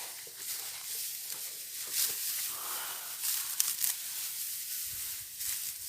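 Dry rice stalks rustling as rice is harvested by hand, with a few short crisp tearing swishes about two and three and a half seconds in, over a steady high hiss.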